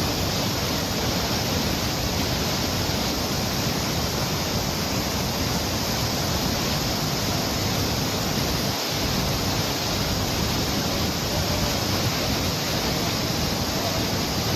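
Steady rushing of the fast, rocky headwater stream of the Yamuna, an even, unbroken noise.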